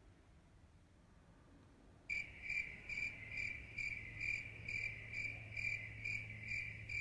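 Cricket chirping, the stock sound effect for an empty, silent room: a high chirp repeating evenly a little over twice a second, starting suddenly about two seconds in over a steady low hum. Before it, near silence.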